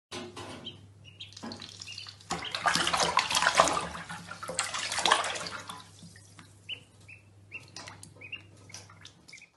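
Water rushing and splashing in a bathtub, loudest for a few seconds in the middle, while a duckling peeps in short, high rising chirps that stand out near the end.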